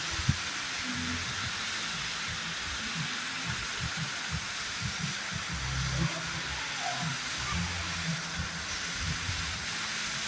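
Roadside waterfall's falling water, a steady rushing hiss, with irregular low rumbles underneath.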